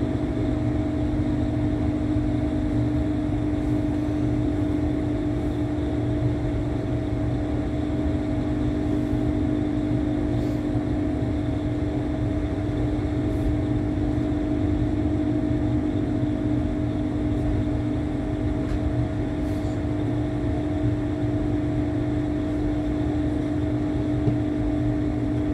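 Steady running noise inside a moving passenger train carriage: a low rumble with a constant hum over it.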